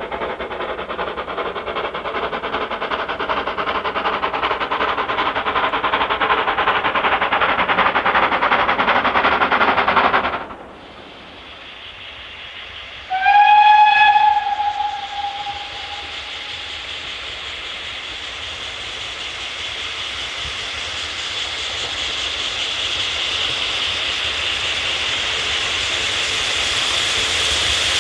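GWR 2800-class 2-8-0 steam locomotive No. 2807 working uphill towards the listener, its exhaust growing louder, then falling away sharply about ten seconds in. A single blast on its whistle follows a few seconds later, and then a steady hiss of steam that grows louder as the engine comes close.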